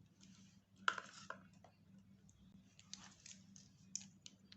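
Light clicks and taps from small lip balm tubes and their packaging being handled, with the sharpest click about a second in and a few more between three and four seconds in, over a faint steady low hum.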